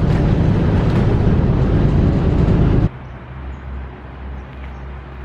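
Loud, steady running noise inside a moving city bus, engine and road noise together. It cuts off abruptly about three seconds in, giving way to a much quieter steady low hum.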